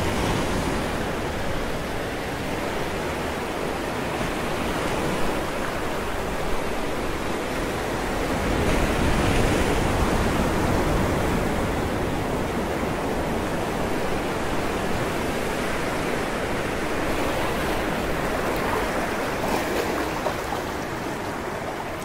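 Sea waves breaking and surging against a rocky shore: a continuous rushing wash of surf that swells louder near the middle as a bigger wave comes in.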